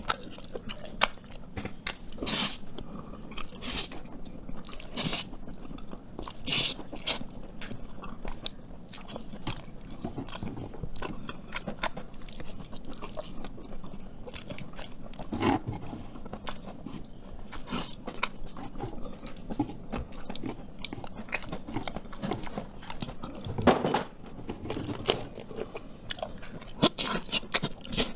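A person chewing and biting food close to the microphone: dense irregular clicks and short crunches, with several louder bites in the first seven seconds.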